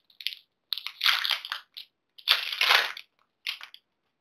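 Foil wrapper of a Pokémon TCG Sword & Shield booster pack being torn open and crinkled, in several short rustling bursts, the longest about two seconds in.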